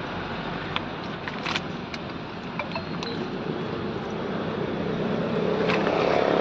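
Road traffic with a steady engine hum that grows louder near the end, and a few light clicks in the first two seconds.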